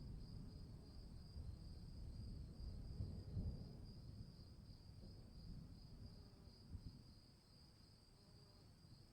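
Crickets chirping in a steady, fast-pulsing high trill, with a faint low rumble underneath that eases off near the end.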